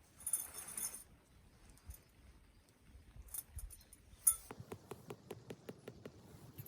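Light metallic clinking and jingling near the start, then a run of small sharp clicks, about four or five a second, in the second half.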